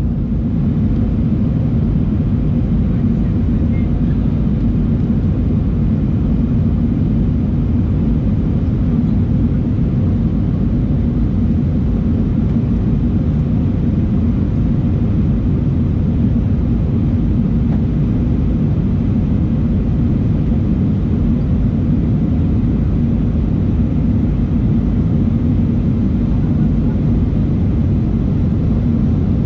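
Steady low rumble of an Airbus A319's jet engines and airflow heard from inside the cabin.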